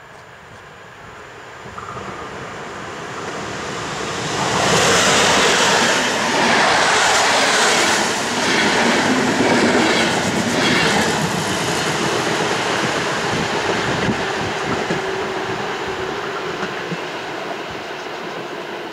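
PKP EP09 electric locomotive and its passenger coaches passing through a station at speed. The sound builds as the train approaches, is loudest from about four to eleven seconds in with a clickety-clack of wheels over rail joints, then fades steadily as the coaches roll away.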